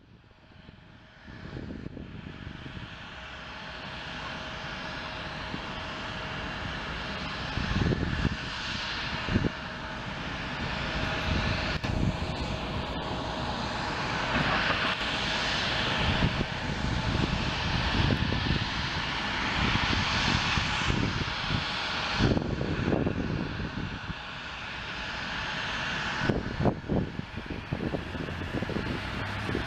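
Jet noise from an Airbus A350-900's Rolls-Royce Trent XWB engines as the airliner lands: a broad rush with a steady whine, growing louder over the first twenty seconds, easing briefly and rising again near the end. Short low thumps of wind on the microphone break in now and then.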